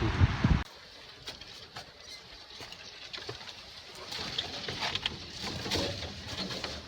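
Rushing waterfall that cuts off abruptly under a second in. It gives way to a much quieter outdoor background with scattered light clicks and a few faint soft calls.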